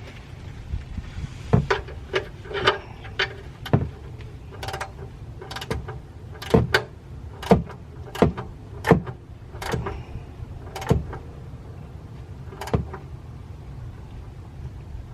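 A dozen or so sharp metal clanks and knocks at irregular intervals from tools and parts being handled during an oil change under the car, over a steady low rumble.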